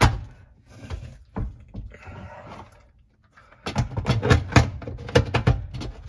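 Plastic clicks and knocks from dishwasher parts being handled inside the tub: a sharp knock at the start, a few scattered clicks, then a quick run of clattering knocks about two-thirds of the way through.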